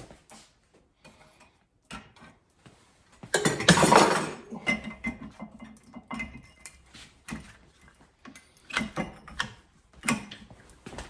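Small metal parts and tools clinking and clicking as they are handled, with one loud rushing noise lasting about a second, a third of the way in.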